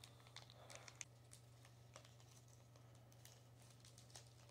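Near silence with faint, scattered small clicks and rustles of a wafer pack's wrapper being handled and opened.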